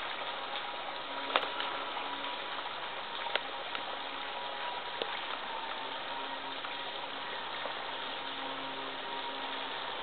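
Steady rush of a small waterfall pouring off a rock ledge and splashing below, with a few sharp clicks in the first half.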